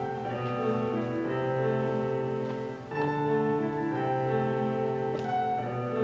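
Instrumental music of sustained notes in slowly changing chords, with a brief drop in loudness just before the halfway point.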